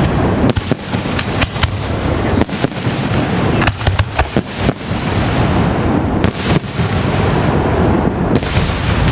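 Fireworks display going off: many sharp bangs and crackles, thickest around the middle, over a continuous low rumble of booms.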